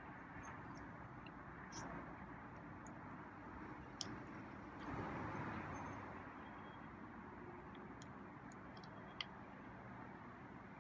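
Faint steady hum of distant road traffic, with a car passing that swells and fades about five to six seconds in. A couple of small sharp ticks come through near the middle and near the end.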